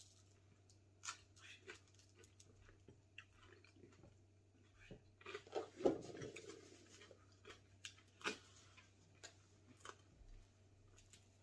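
Quiet chewing and crunching of crisp air-fryer-toasted baguette, with small crackles and clicks as the bread is torn and eaten. A few louder clicks cluster about halfway through.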